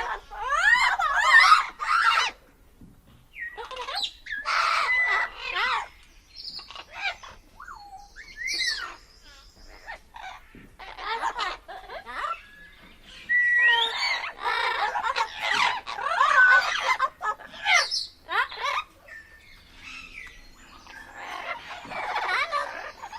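Parrot calling and chattering: repeated bursts of squawks and pitch-gliding calls with short pauses between them.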